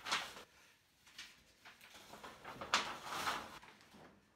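Large paper plan sheets rustling and crackling as they are lifted and moved, in two bursts: a short one at the start and a longer, louder one about three seconds in.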